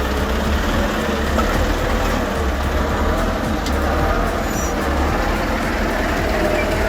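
Engine of a heavy machine running steadily, a low, even rumble.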